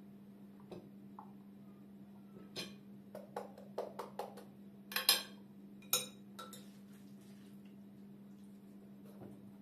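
Metal spoon clinking and scraping against a glass mixing bowl as stuffing is scooped and packed into bell peppers: a run of sharp clinks in the middle seconds, the loudest two about five and six seconds in. A steady low hum lies underneath.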